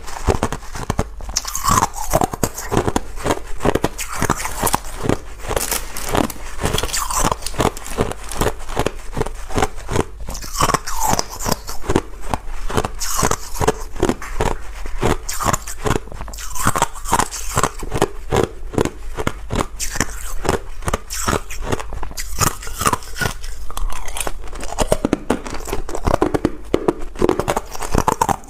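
A person biting and chewing ice close to the microphone: a dense, rapid run of sharp crunches and cracks.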